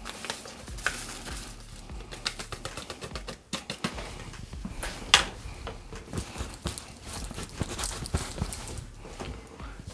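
Paper seasoning packet crinkling and being shaken as dry ranch mix is sprinkled over a roast in a slow cooker crock, with light rustles and ticks throughout and a sharper tap about five seconds in.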